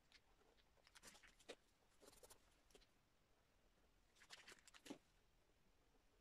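Faint scratchy rustling and light clicks from hands handling a black marker and art materials, in three short clusters: about a second in, around two seconds, and again from about four to five seconds.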